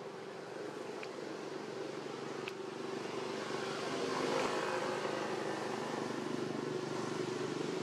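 A motor engine droning steadily, slowly growing louder to a peak about halfway through.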